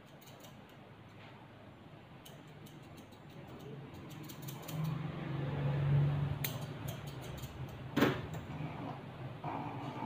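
Electric dog clippers running with a steady low hum that grows louder about halfway through. Scattered light clicks sit over the hum, with one sharp knock about eight seconds in.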